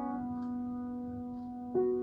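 Solo piano improvisation: a held chord slowly dies away, then a new note is struck near the end.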